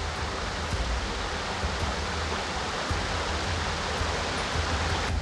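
Rushing water of a small rocky forest stream, a steady hiss with a low rumble underneath, which drops away abruptly near the end.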